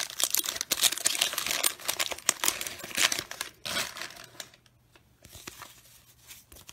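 Waxed-paper wrapper of a 1990 Bowman baseball card pack being torn open and crinkled, a dense crackling for the first three to four seconds. After that, only faint scattered rustles and clicks as the stack of cards is handled.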